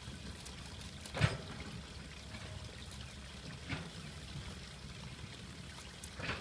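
Water trickling from a woven bamboo fish trap as it is tipped over a plastic bucket, with a few brief knocks, the loudest about a second in.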